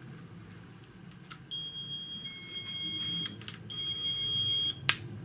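Kannad 406 AP emergency locator transmitter's buzzer sounding when the unit is switched on: a steady high-pitched beep of about two seconds, a short gap, then a second beep of about a second. A sharp click follows near the end.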